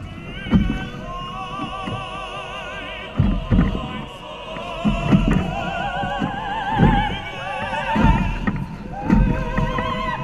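Background music led by a singing voice with a wavering vibrato, over irregular low thumps every second or two.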